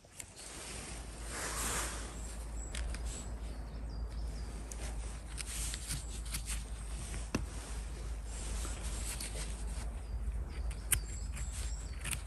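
Footsteps crunching through dry leaf litter and twigs on a forest floor, with scattered crackles and snaps over a steady low rumble.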